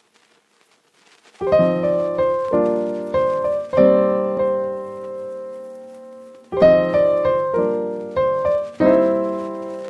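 Background piano music: near silence for about a second and a half, then slow struck chords that fade out around the middle, and a second phrase of chords from about six and a half seconds in.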